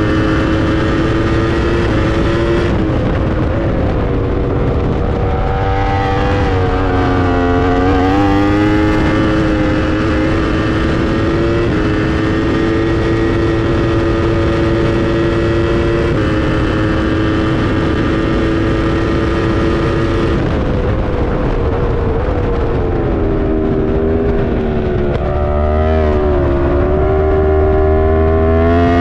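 Yamaha R1 superbike's inline-four engine at full racing speed on a circuit, with heavy wind noise. The engine note holds steady for several seconds at a time, jumps in sudden steps, and twice dips and climbs again over a few seconds.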